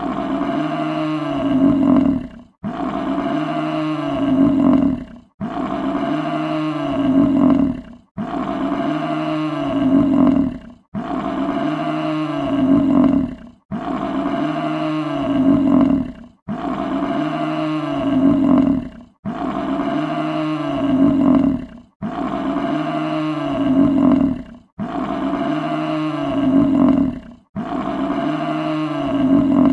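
Bison bellowing: the same deep roar repeated about every two and a half to three seconds, around eleven times, each one swelling louder before it cuts off sharply, as a looped recording.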